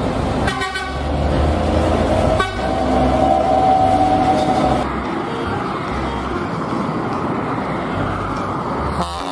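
Bus horns sounding over a bus engine and road noise: two short blasts in the first few seconds, then a held note lasting about two seconds.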